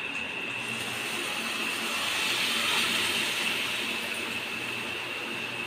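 Cooked lentils poured into a hot kadai of oil-fried masala, sizzling with a steady hiss that grows louder about halfway through.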